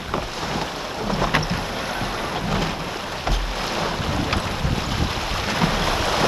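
Wind buffeting the microphone and water rushing along the hull of a J/24 sailboat under way, with a few sharp knocks scattered through it.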